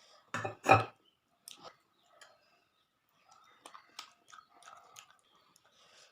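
Close-up eating sounds: a person chewing with wet mouth clicks and smacks, two louder ones within the first second, then softer scattered clicks.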